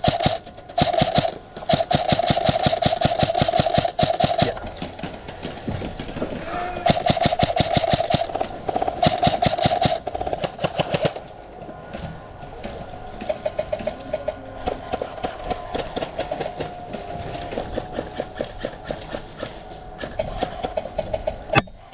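Airsoft guns firing on full auto: a rapid, even clatter of shots over a steady motor whine. Long bursts fill the first ten seconds, then quieter, shorter strings follow.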